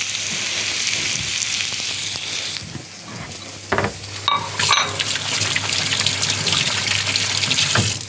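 Beef grill burgers sizzling on a hot ribbed grill plate, a steady hiss that dips briefly a few seconds in, with a few sharp clinks around the middle.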